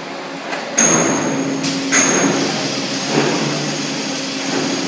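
Pneumatic clamp cuber stacking concrete blocks: a steady machine hum, with two sudden hisses of compressed air from its valves, about a second in and again at two seconds, and metal knocks as the clamp works.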